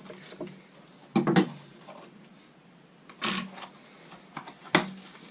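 A small cardboard box holding a steel quick-change tool holder being handled and opened: a few knocks and clinks, the loudest about a second in, then a sharp click near the end, with some rustling between.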